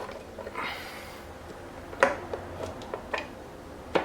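Scattered clicks and knocks with a brief rustle as a wiring harness is tucked in and a motor controller is pushed up into a dirt bike's frame, the loudest knock about two seconds in.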